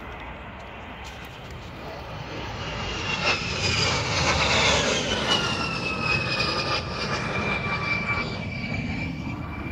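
A-10 Warthog making a low pass on its two TF34 turbofan engines. The whine and rush swell to a peak about four to five seconds in, then the whine drops in pitch as the jet moves away.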